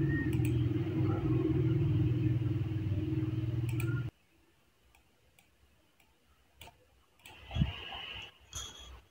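A steady low hum that cuts off suddenly about four seconds in, leaving near silence broken by a few faint computer-mouse clicks and a soft thump near the end.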